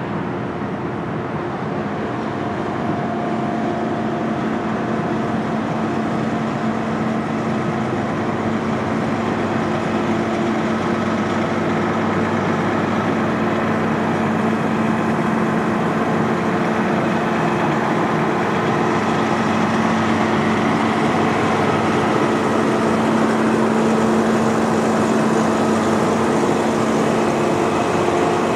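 Pierce heavy rescue truck's diesel engine idling steadily, a constant hum that grows slightly louder over the course of the sound.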